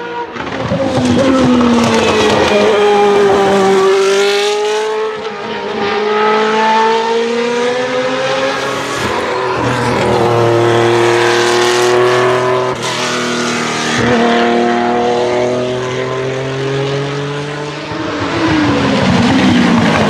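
Naturally aspirated V8 formula race cars at speed on track, more than one at a time, their high-revving engine notes falling and rising in pitch as they go by and change speed.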